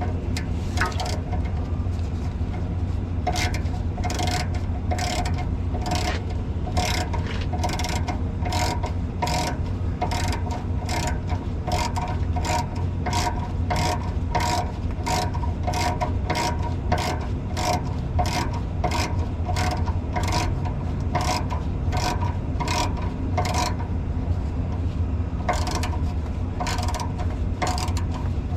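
Hand ratchet wrench clicking steadily at about two strokes a second as a fastener on a forklift's DEF injector is run down, pausing briefly near the end.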